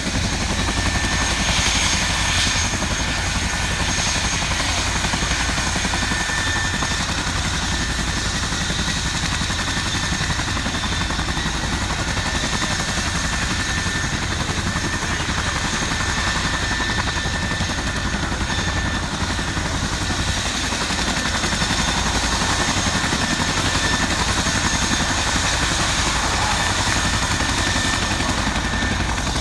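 RAF Chinook tandem-rotor helicopter running on the ground with its rotors turning: a steady, unbroken heavy rumble with a constant high turbine whine over it.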